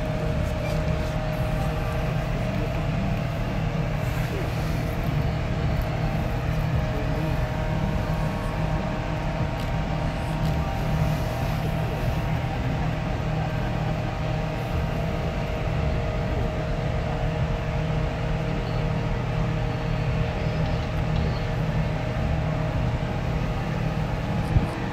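Large ships' engines running steadily as a cruise ship and its tug move along the river: a continuous low rumble under a constant mechanical hum, with a sharp click near the end.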